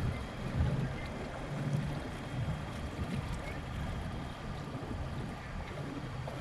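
Boat under way: a steady motor and water noise, with wind buffeting the microphone in low gusts.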